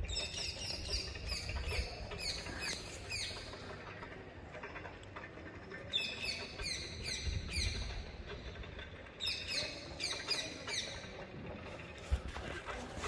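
Birds chirping in three bouts of quick, short, falling notes, with pauses of a few seconds between bouts, over a low rumble.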